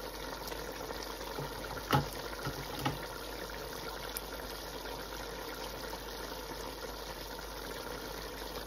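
Beef pieces simmering in a steel stockpot: a steady bubbling hiss. A light knock comes about two seconds in, and a smaller one about a second later.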